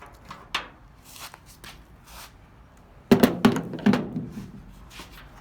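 Handling of a cut-apart plastic wire connector: a few light plastic clicks, then a burst of louder knocks and thunks about three seconds in.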